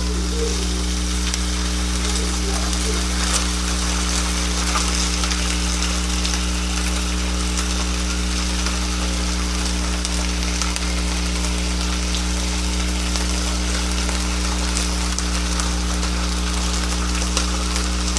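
Venison burgers frying in a pan with mushroom gravy added, a steady sizzle with faint crackles, over a constant low electrical hum.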